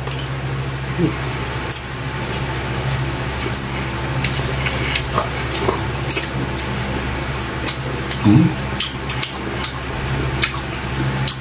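Close-up eating sounds: lip smacking, chewing and sucking on pieces of saucy adobo octopus, heard as scattered short clicks and smacks over a steady low hum, with a brief low vocal sound about eight seconds in.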